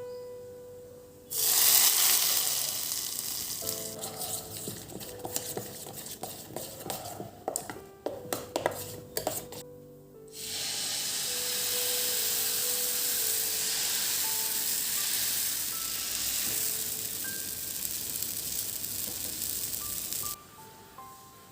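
Food sizzling in hot oil in a pan, starting suddenly about a second in, with clinks and scrapes of a spoon stirring against the pan in the middle. A second, steadier stretch of sizzling starts about halfway and cuts off abruptly near the end. Soft background music runs underneath.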